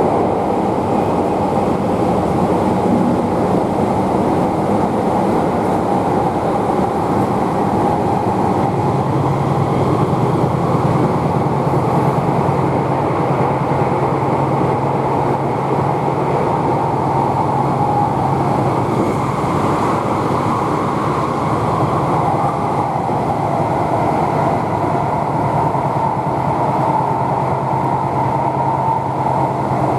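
Tokyu 3020 series electric train running between stations, heard from inside the car: a steady rumble of wheels and running gear with a faint steady whine. A low hum joins about nine seconds in.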